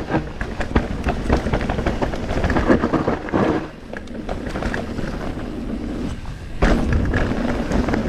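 Mountain bike riding down a rough enduro trail: tyres rattling over roots and rocks, with the chain and frame clattering in quick, uneven knocks. The clatter eases off for a few seconds in the middle and then picks up again.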